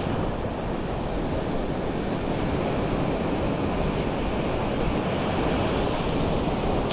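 Surf breaking on a sandy beach, a steady rush of wave noise, with wind on the microphone.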